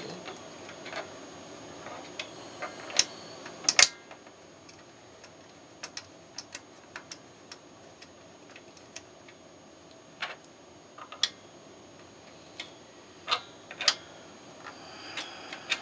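Irregular light clicks and taps from screws and hardware being handled and fitted as a take-up motor is secured to a wooden quilting-frame end support, with a sharper knock about four seconds in and another near the end.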